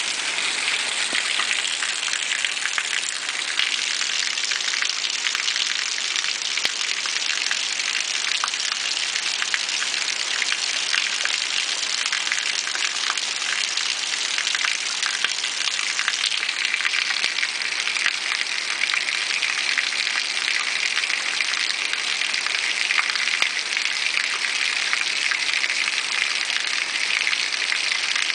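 Steady rush of water, with many fine ticks running through it.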